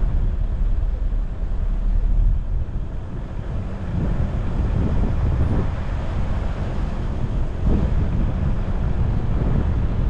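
Wind buffeting an outside-mounted dashcam's microphone, an uneven low rumble, mixed with the road and engine noise of a vehicle driving slowly.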